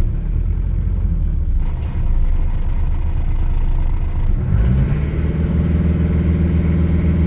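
Mitsubishi Triton's 2.8-litre four-cylinder turbo-diesel idling steadily, its sound growing louder and more even-toned about four and a half seconds in. The engine has low oil pressure at idle, which the owner suspects may instead be a faulty oil pressure switch.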